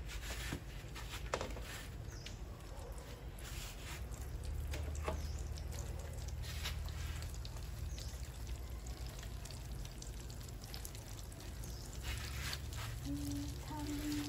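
Egg-and-breadcrumb-coated baguette frying in oil in a pan on a portable gas stove: a soft sizzle with scattered crackles and pops over a low steady rumble. Near the end a pitched sound in short stepped notes begins.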